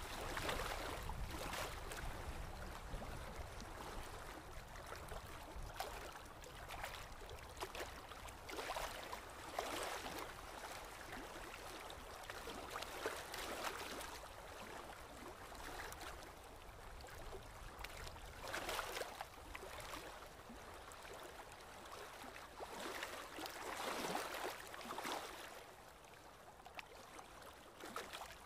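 Shallow river water splashing and sloshing as hands work through a fishing net held in the water, with louder splashes every few seconds.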